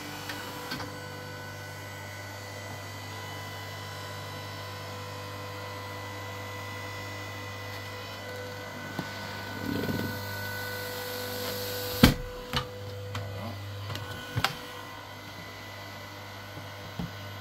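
Electric log splitter, converted into a tyre bead breaker, running with a steady motor and hydraulic pump hum as its ram drives a wooden block against the tyre sidewall to push the bead off the rim. A sharp crack comes about twelve seconds in, followed by a few smaller knocks.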